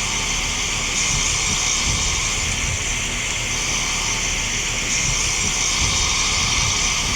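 Outdoor unit of a 2020 ICP two-ton heat pump running steadily just after coming out of defrost: the condenser fan blowing air over the coil, with the Copeland scroll compressor running under a low rumble and a steady airy hiss.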